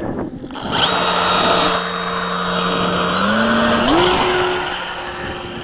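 Radio-controlled model plane's motor and propeller running for a hand launch: a steady whine that steps up in pitch twice, about three and four seconds in, then fades as the plane flies off.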